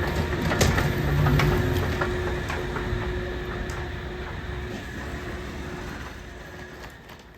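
Steady vehicle rumble with a constant hum and occasional clicks, heard from inside, fading out gradually toward the end.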